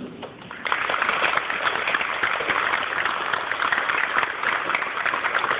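Audience applauding, the clapping breaking out about half a second in and continuing steadily.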